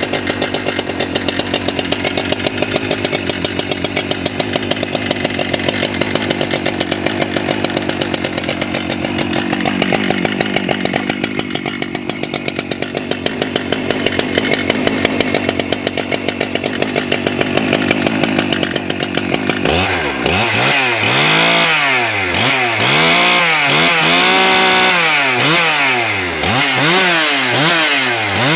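Husqvarna 395XP two-stroke chainsaw idling steadily with a pulsing beat. About twenty seconds in, it is revved up and down over and over, its pitch climbing and dropping with each blip of the throttle.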